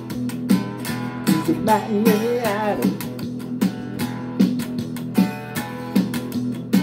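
Guitar strummed in a steady rhythm, with a strong strum about every three-quarters of a second over ringing chords. About two seconds in, a short melody line wavers and glides in pitch over the strumming.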